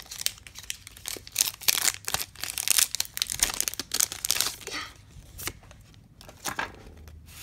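Foil wrapper of a Pokémon booster pack being torn open and crinkled by hand. There is a dense run of crackling and tearing for the first four and a half seconds, then only a few scattered crinkles as the cards come out.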